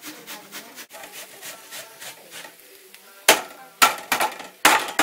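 Apple being grated on a metal box grater: a run of rasping strokes, about three a second, then several loud knocks near the end.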